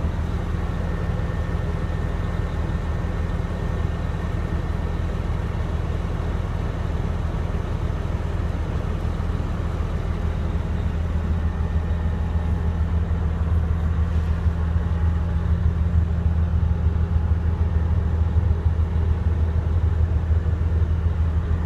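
Caterpillar D6T bulldozer's diesel engine running steadily, its sound heaviest in the low end, getting a little louder about halfway through.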